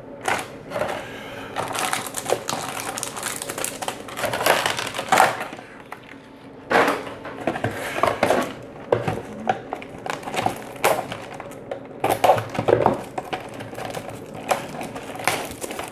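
Cardboard Yu-Gi-Oh Duelist Saga boxes being opened and handled: irregular crunching, scraping and rustling with sharp clicks and knocks.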